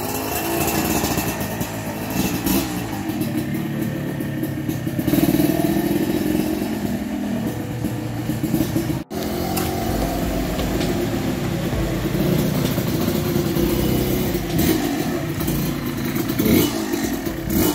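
Suzuki TS125 single-cylinder two-stroke engine revving as the trail bike pulls away, rides off and comes back, its pitch rising and falling with the throttle. The sound cuts out for an instant about nine seconds in.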